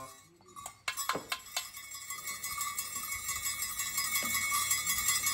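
Metal bells ringing rapidly and continuously, a steady shimmering jingle with a held ringing tone, starting after a few sharp strikes about a second in.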